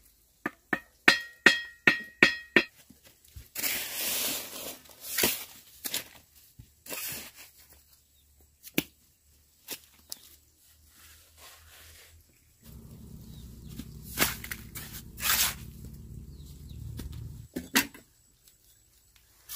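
Bricklaying with a metal trowel: about eight quick, ringing taps on a brick as it is set, then the scrape of mortar being worked, with scattered knocks. In the second half a low, steady machine hum runs for about five seconds.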